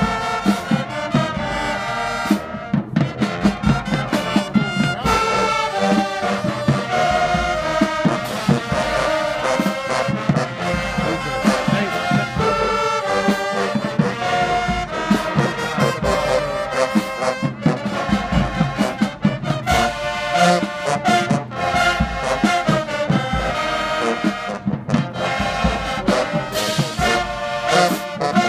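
Marching band playing a brass-heavy tune, with a regular beat of sharp strokes under the horns.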